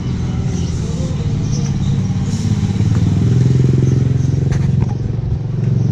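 Small motorbike pulling a loaded street-vendor trolley runs past at close range, its engine loudest as it goes by about three to four seconds in, then easing off.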